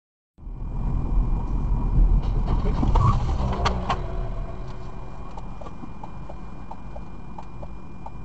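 Low road and engine rumble of a car driving, heard through a dashcam microphone, starting abruptly. It is loudest in the first few seconds, with a few sharp knocks near the middle and lighter ticks after.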